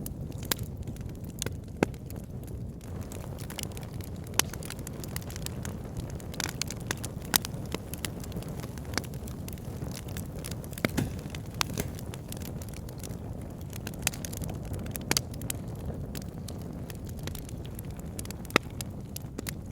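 Wood fire in a log burner crackling: a steady low rumble of flames with irregular sharp pops and snaps, a handful of them louder than the rest.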